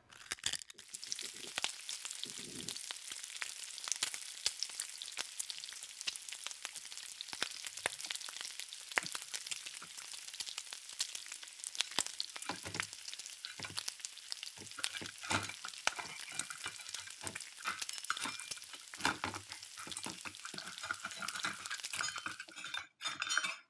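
Frying sizzle sound effect: a steady crackle of many tiny pops, standing in for a toy fried egg being cooked. A few soft knocks of a metal spatula against the toy pan come through.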